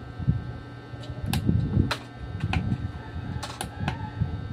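Push buttons on a karaoke amplifier's front panel clicking as they are pressed, several separate clicks with some low knocking from the hand, over a steady low hum.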